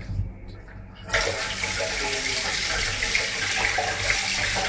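Kitchen tap turned on about a second in, then water running steadily into a stainless steel sink and splashing over a crab being rinsed by hand.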